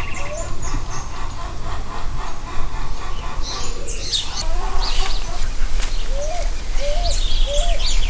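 Mixed bird calls: scattered short high chirps, and a series of short rising hoots repeated about one and a half times a second, heard at the start and again from about six seconds in, over a steady low rumble.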